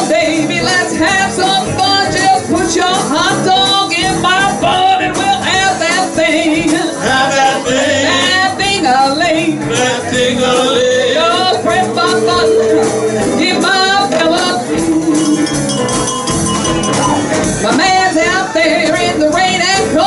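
Live blues band playing a shuffle-style number, with drums and a lead line that bends up and down in pitch.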